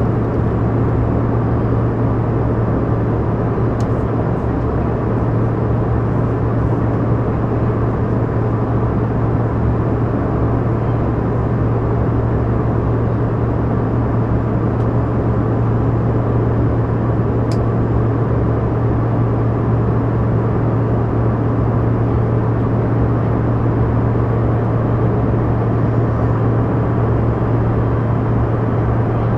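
Steady cabin noise of a Canadair CRJ200 regional jet with its two rear-mounted turbofans running: an unchanging low drone over an even rush of air.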